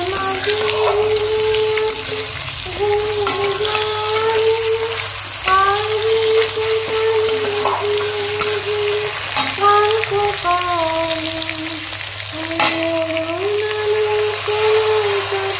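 Spices and chopped tomato frying and sizzling in an aluminium karahi, a metal spatula stirring and scraping with scattered clicks. Over it, a woman's voice sings a tune in long held notes. Near the end, a liquid spice mix is poured into the pan.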